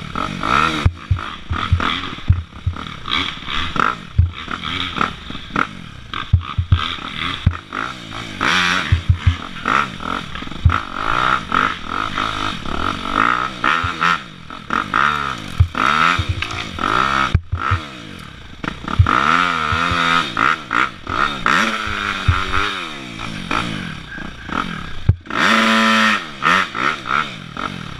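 Dirt bike engine being ridden, its revs rising and falling constantly, with clattering knocks from the bike over rough ground. There is a hard rev up and back down near the end.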